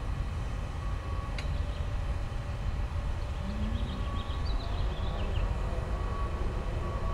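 Steady low wind rumble on the microphone, with the thin whir of a 3-inch FPV micro drone's motors and propellers cruising at low throttle on a 3S battery.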